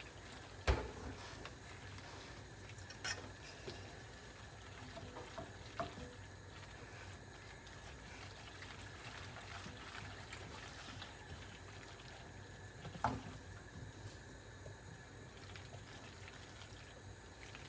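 Faint wet stirring of pasta in a cheese sauce in a pot on high heat, with a few sharp knocks of the spoon against the pot, the loudest about a second in.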